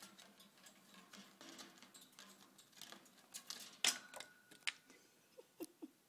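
A budgerigar moving about its wire cage: an irregular patter of small clicks, taps and scratches from claws and beak on the perches, wires and toys, with one sharp knock past the middle.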